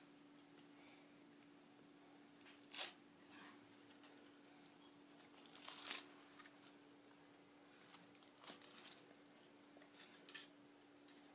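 Foil wrapper of a Kinder Surprise chocolate egg crinkling and tearing as it is peeled off, in a few short, faint bursts spaced a couple of seconds apart, over a faint steady hum.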